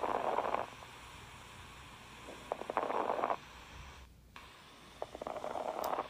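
Lung sound recording of fine crackles: three breaths about two and a half seconds apart, each a short burst of fine crackling like Velcro being ripped apart. This is the sign of alveoli popping open on inspiration, as heard in heart failure and atelectasis.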